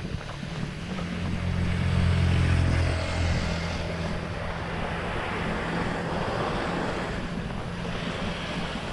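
Wind rushing over an action camera's microphone during a run along a road, with a motor vehicle's low engine hum that swells to its loudest about two to three seconds in and then fades back.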